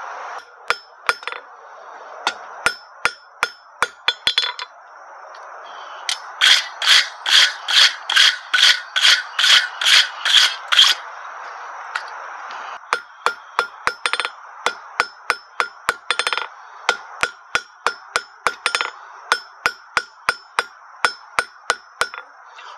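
Hand hammer striking a red-hot half-inch square steel bar on an anvil, shaping the bar round. The blows come in runs: a sparse few, a short pause, a fast run of about a dozen loud ringing strikes, then steadier blows at about two a second. A steady rushing noise sits underneath through the first half.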